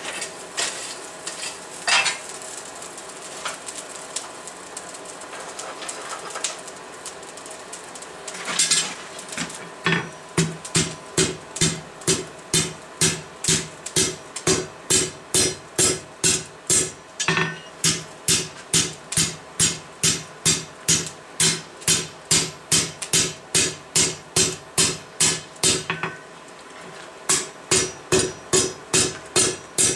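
Hammer blows on an anvil while forging hot steel into a poker, each strike ringing. A few single blows come first, then a steady rhythm of about two blows a second, with a short pause near the end before the hammering resumes.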